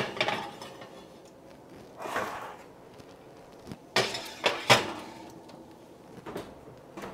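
Metal muffin tins set down on and slid along wire oven racks, a sharp clank at the start and two more about four seconds in, with a scraping slide between them. Near the end the oven door swings shut with a duller knock.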